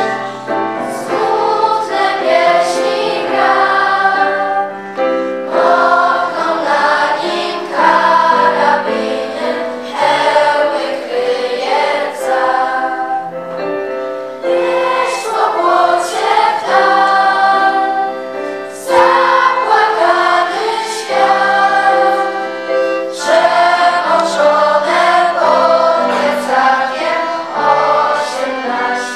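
A choir singing a hymn in several voices, in phrases of about four to five seconds with short breaks between them.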